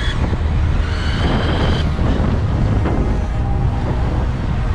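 Wind buffeting the camera microphone with road rumble while riding an electric bike, a steady low rumble throughout. A brief high-pitched whine comes in about a second in.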